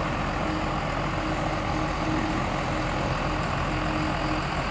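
Heavy diesel engine running steadily with a low, even rumble.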